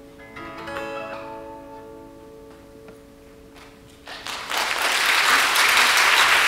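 Closing plucked notes of a guzheng and acoustic guitar ring out and fade. About four seconds in, audience applause breaks out and quickly grows loud.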